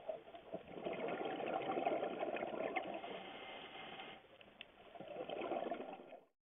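Scuba diver's exhaled breath bubbling out of the regulator underwater, in two long stretches with a short lull a little past four seconds in. It cuts off abruptly just before the end.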